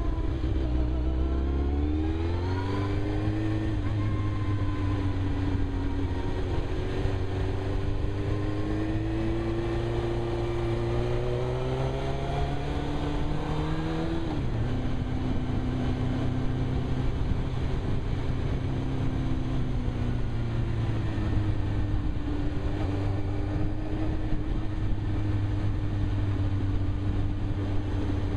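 Suzuki GSX-R 1000 inline-four motorcycle engine under way, heard from a helmet-mounted camera with low wind rumble. The engine pitch rises as it accelerates over the first few seconds, climbs slowly, drops sharply about halfway through at a gear change, then holds fairly steady at cruising speed.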